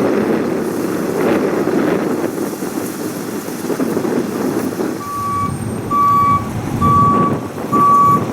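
A steady low rumble, with a vehicle's reversing alarm beeping four times from about five seconds in.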